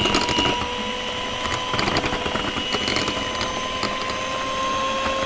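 Electric hand mixer running at speed, its twin beaters whisking a thin egg-and-sugar batter in a glass bowl: a steady motor whine whose pitch creeps up slightly.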